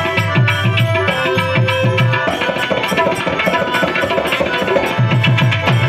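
Instrumental interlude of a Gujarati bhajan: a harmonium holds and moves between sustained reed notes over a tabla-style hand drum beating a steady rhythm, its low strokes bending in pitch.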